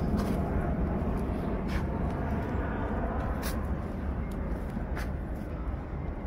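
Outdoor background noise: a steady low rumble with a few faint clicks.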